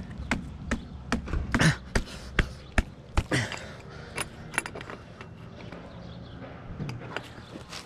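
Sharp metallic clicks and clinks of a wrench working a threaded fitting on copper pipe: irregular, many in the first five seconds, a short pause, then a few more near the end.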